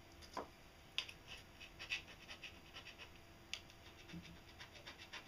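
Thin steel scriber scratching marking lines onto a flat steel bar, drawn along a plastic speed square: a quick run of short, faint scraping strokes, with a sharp tick about a second in.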